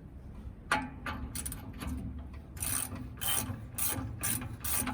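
Hand ratchet wrench being worked in quick, uneven strokes, its pawl clicking with each swing, as a stiff, tight part on a truck's rear brake finally turns. The strokes start about a second in.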